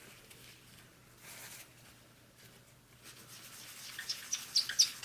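Folded paper tissue rubbing over a laptop's processor die, wiping off old thermal paste. Faint at first, with a run of louder scratchy rubs near the end.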